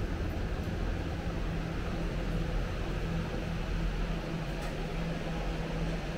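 Steady city street ambience: a low mechanical hum and rumble with a faint steady tone, like traffic and air-conditioning units, with no distinct events standing out.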